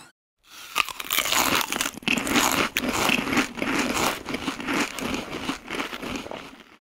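Noisy snacking: irregular crinkling and crunching that starts after a brief silence and keeps going.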